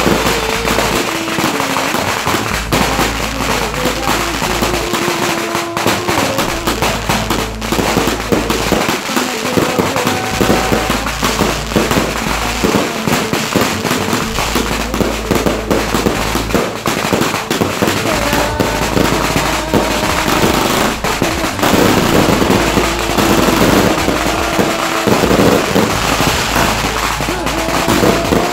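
Fireworks going off one after another in a dense, continuous run of cracks and pops.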